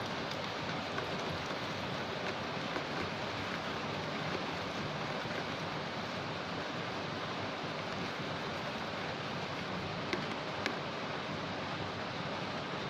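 Steady hiss of rain. A couple of faint clicks come about ten seconds in.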